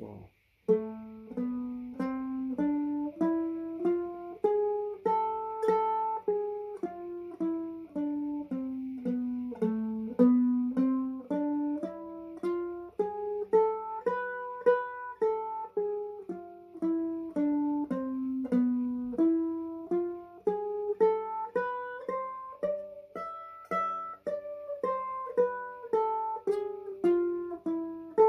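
Mandolin played as a single-note melody, picked one note at a time at about two notes a second, running up and down an A harmonic minor scale study.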